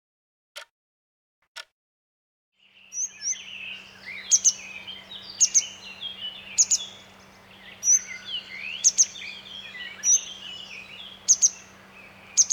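A few sharp ticks about a second apart, then grey wagtail calls over the steady rush of a stream: sharp, metallic doubled notes about once a second, mixed with quicker twittering.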